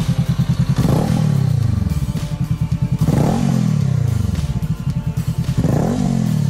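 Honda Rebel 500's parallel-twin engine through an aftermarket Swica twin-outlet exhaust, idling with a lumpy, even pulse and blipped three times. Each rev climbs quickly and then falls back to idle over about a second.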